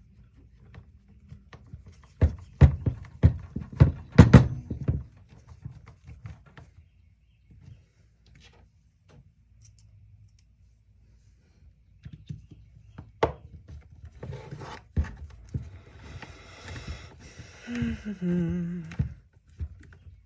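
Knocks and clatter of small tool parts being handled on a workbench, in two bursts with a quiet stretch between them.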